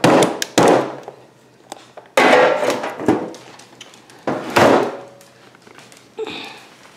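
Hard knocks of a plastic coffee-maker part being tapped against a kitchen trash can to shake out the used coffee grounds, followed by two louder clattering handling sounds.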